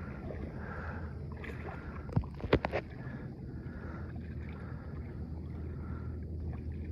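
Kayak being paddled: soft water swishes come with the paddle strokes over a steady low rumble, and a few sharp knocks sound a little over two seconds in.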